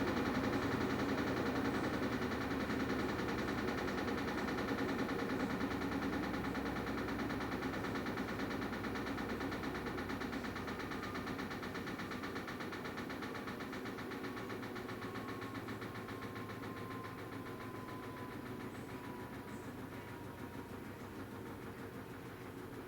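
Washing machine running with a steady mechanical hum. A thin whine slowly falls in pitch as the whole sound fades steadily, like the drum winding down.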